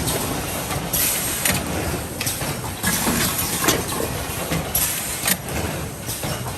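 Automatic blister card packaging machine running, a steady mechanical clatter with irregular knocks and short hissing bursts.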